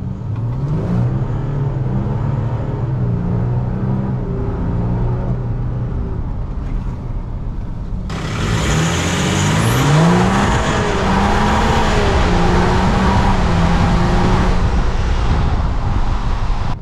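Volkswagen Amarok 3.0 V6 turbodiesel accelerating hard from a launch with its exhaust cutout closed, the stock-style exhaust note, the engine pitch climbing and dropping back at each gear change. It is first heard from inside the cabin; about eight seconds in it switches to a microphone under the truck, louder with a rush of wind and road noise.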